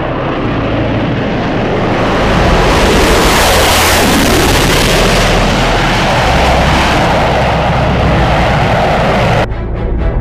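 Loud rushing noise of a jet-flight sound effect over low music notes. It swells about two seconds in and cuts off suddenly near the end, leaving music with a steady beat.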